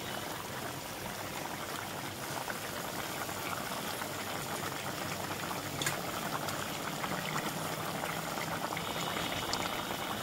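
Fish curry broth boiling vigorously in an open metal wok, a steady bubbling and popping. One brief click about six seconds in.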